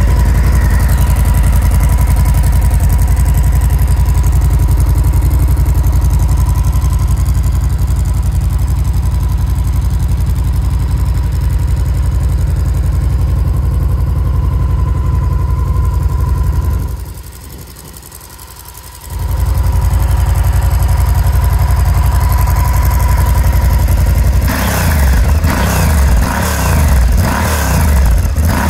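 Honda XL1000V Varadero's 1000 cc V-twin idling steadily through aftermarket Quill exhaust cans, just after being started. The sound dips for about two seconds a little past the middle, and in the last few seconds the engine note turns uneven, rising and falling.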